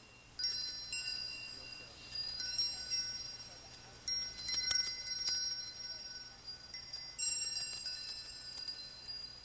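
High metal chimes ringing, many overlapping tones struck again and again and left to ring, loudest a little after the middle and again near the end.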